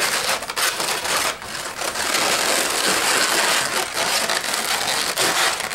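Latex twisting balloons (160s) rubbing against each other and against the hands as the nozzle ends are tucked into the pinch twists of the frill. A continuous dense rubbing noise that dips briefly a couple of times.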